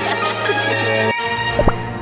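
Cartoon background score with sustained notes, breaking off briefly about a second in, with a short sharp hit near the end.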